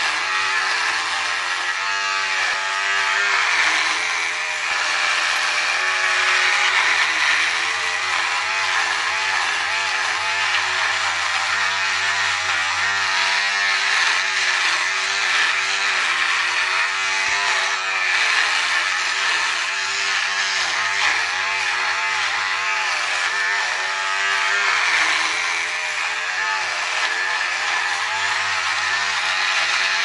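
Electric razor buzzing as it shaves a face, the pitch of the buzz wavering slightly up and down.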